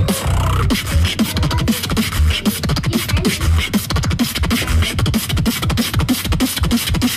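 Fast beatboxing: quick percussive kick, snare and click sounds over a rhythmic lip-buzz bass line.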